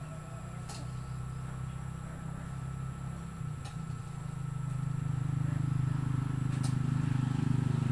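An engine running with a low, steady hum, growing louder from about halfway through, with a few faint clicks over it.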